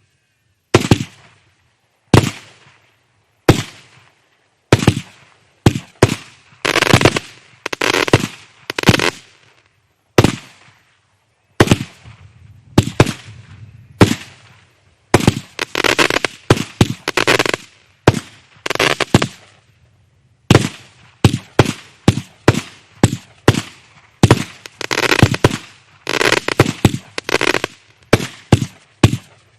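Kimbolton Razzle Dazzle 49-shot firework cake firing shot after shot, a sharp report about every second. Several shots are followed by a spell of crackling from the crackling stars.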